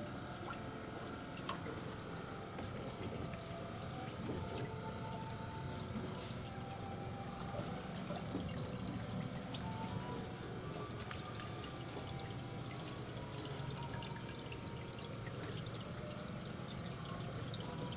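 Water pouring and trickling steadily into a plastic drum fish tank, with a brief tap or splash about three seconds in.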